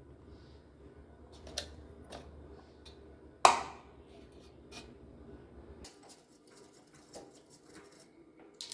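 Clicks and light knocks of small hard objects being handled and set down while a computer is cleaned, with one sharp, louder knock about three and a half seconds in. A low hum stops about six seconds in.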